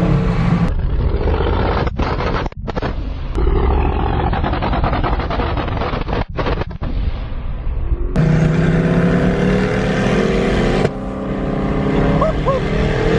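Twin-turbo LS3 V8 of a Drakan Spyder running hard at speed, its exhaust very loud, with two brief sudden dips in the sound. In the second half it settles into a steadier engine drone.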